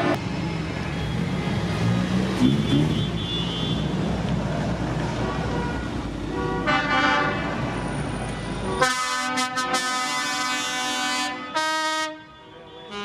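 Parade vehicles rolling past with engines running and a brief horn toot about seven seconds in. A little before nine seconds a loud vehicle horn blows, held for about two and a half seconds, followed by a short second blast.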